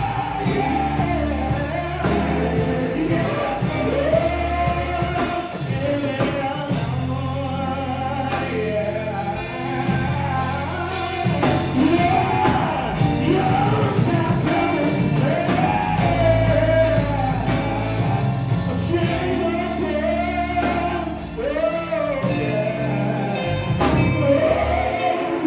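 Male gospel vocal group singing live with a band: a lead voice and harmony voices over electric bass, drums, electric guitar and keyboard.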